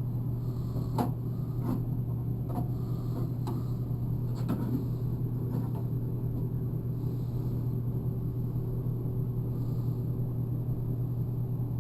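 A steady low mechanical hum, with a few light clicks and knocks in the first few seconds.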